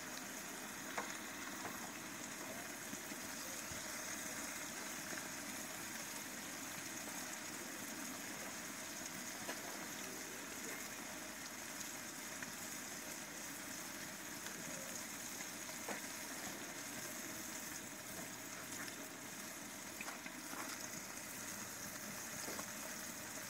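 Large steel cooking pot of chicken and chickpeas boiling over a wood fire: a steady bubbling hiss, with a few faint clicks.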